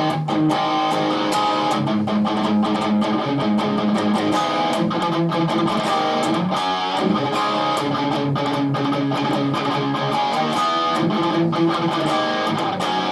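Overdriven electric guitar played through an Orange Micro Dark amp head and Orange PPC112 1x12 cabinet: hard rock chord riffs with sustained chords and sharp picked strokes, with reverb on.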